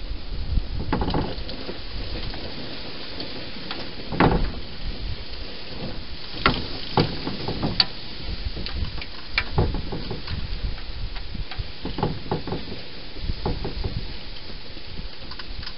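Wild hedgehog eating inside a plastic feeding box: irregular crackly clicks and chewing noises with a few dull knocks, over a steady hiss.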